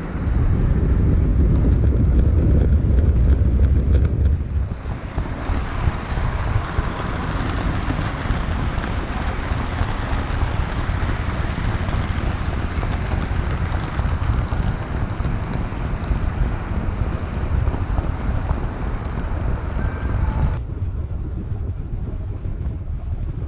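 Model railway train running along the track, heard from a camera carried on the train: a steady rolling rumble of wheels and motor, heaviest in the first few seconds, then a brighter running hiss whose upper edge drops away near the end.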